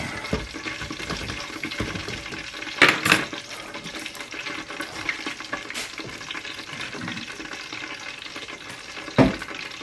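Steady sizzle of food frying in hot oil, with a short clatter of utensils or cookware about three seconds in and a single knock near the end as the fried steaks are lifted out.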